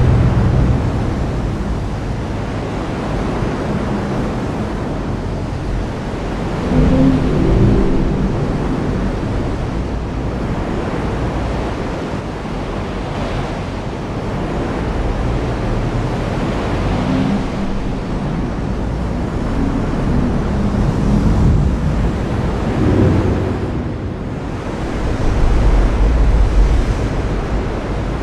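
Heavy rain falling with a steady hiss, with low rolls of thunder swelling a few times, loudest about seven seconds in and again near the end.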